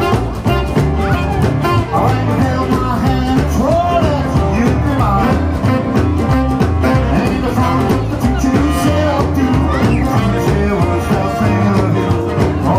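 Live rock and roll band playing at full volume over a steady beat: electric guitar, upright bass and drums, with a male singer.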